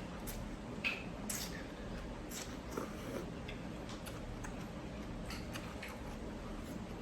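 A person eating a bowl of noodle soup: scattered small mouth clicks and smacks of chewing, a few a second, over a low steady hum.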